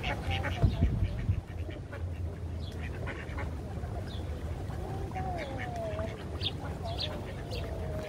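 A flock of mallard ducks, many of them young, quacking and calling while feeding on scattered oats, with short calls coming throughout over a low background rumble. A single thump sounds about a second in.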